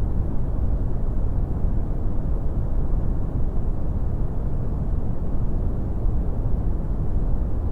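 Steady brown noise: an even, deep rumbling hiss weighted toward the bass, with little treble and no change in level.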